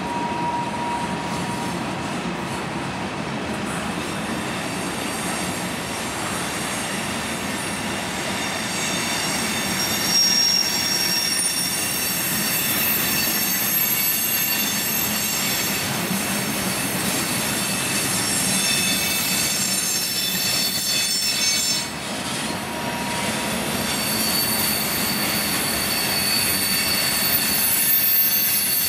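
Freight train cars rolling past, the wheels squealing in several high tones over the rumble on the rails. The squeal grows stronger about ten seconds in.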